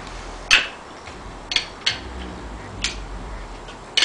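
A few sharp metallic clinks, about a second apart, as a wrench is worked on the lug nuts holding a hub puller to a brake drum hub, snugging them down evenly.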